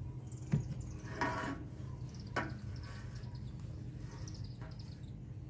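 Three short knocks and thumps as a corded drill and a PVC pipe are handled against a wooden trailer, the first the loudest, over a steady low hum and faint high chirping of birds or insects.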